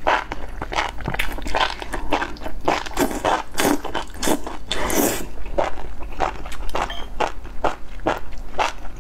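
Close-miked slurping and chewing of enoki mushrooms in spicy broth: a quick run of wet smacks and crunchy bites, with one longer slurp about five seconds in.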